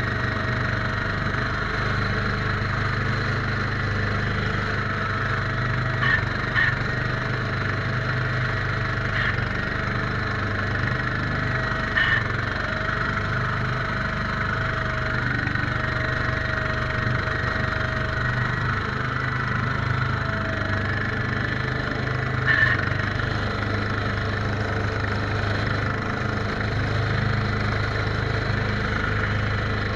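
Case 442 garden tractor's engine running steadily, driving a front-mounted snowblower that throws snow. A few brief knocks sound over the steady running.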